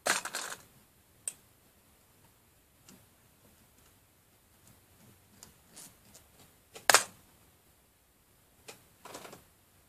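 Scattered metal clicks and knocks as the steel top block and its bolts are handled on a small engine made from a refrigerator compressor. There is a cluster of clicks at the start, the sharpest knock about seven seconds in, and a short rattle near the end.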